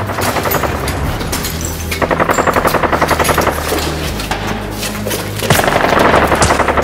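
Rapid bursts of automatic machine-gun fire, loudest in a burst about two seconds in and another near the end, over a music score with a steady low drone.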